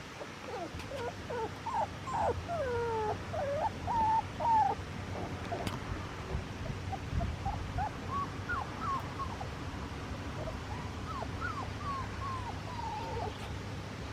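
Golden retriever puppies whimpering and yipping in many short, rising and falling whines, thickest in the first few seconds and sparser later, over a low steady rumble.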